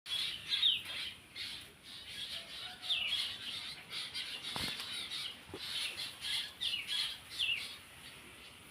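Birds chirping, with a short falling call repeated several times over steady high twittering.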